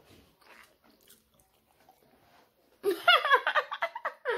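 Quiet chewing with faint small clicks, then about three seconds in a woman bursts into loud, high-pitched laughter through her hand.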